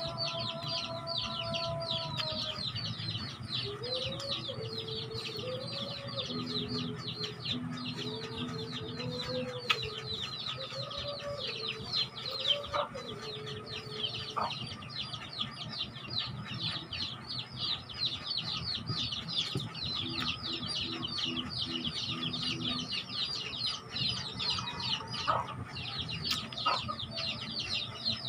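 Chickens calling: a fast, continuous chatter of short high peeping calls, with lower clucking calls for a stretch in the middle and a few brief knocks.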